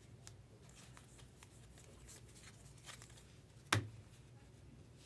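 A stack of baseball trading cards being thumbed through by hand, with faint soft slides and flicks of card on card. About three-quarters of the way in comes one sharp tap, the loudest sound.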